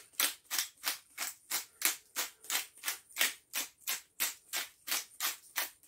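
Pepper shaker shaken over fish fillets in quick, even strokes, about three a second, each stroke a short rattle of ground pepper.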